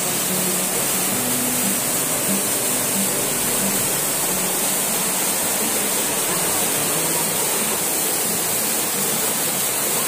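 Waterfall cascading over rocks close by: a steady, dense rush of water.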